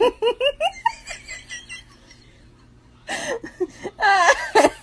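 A person laughing in a quick run of short bursts, then a pause, then louder laughter from about three seconds in.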